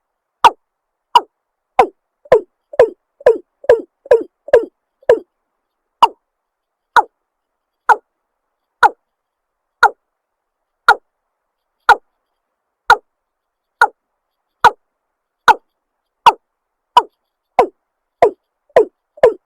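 Watercock calling: a series of short, sharp notes each sweeping downward, about one a second, with a quicker run of lower, fuller notes from about two to five seconds in and again near the end.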